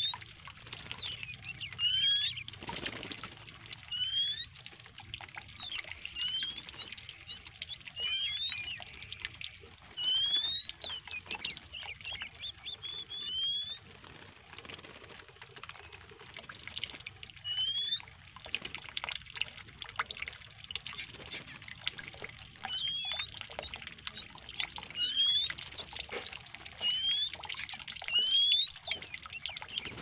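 Water running in a stream from a tap down through a birdcage, splashing as magpie-robins bathe and flutter their wings in it. A bird whistles short rising notes over and over, about every two seconds.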